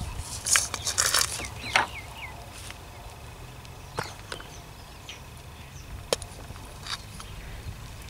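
A steel serving spoon scraping through a pot of curry and clinking against glass bowls while the curry is dished out. A busy run of scrapes and knocks in the first two seconds, then single sharp clinks every couple of seconds. A few short high chirps near the start.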